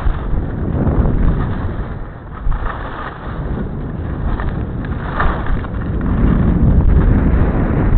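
Wind buffeting the small built-in microphone of camera glasses worn while skiing downhill: a loud, rough rumble that swells and dips.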